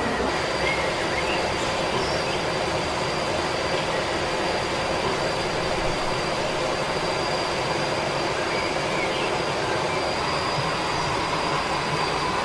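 Steady, unbroken rush of falling water from a nearby waterfall, with a thin steady high tone above it.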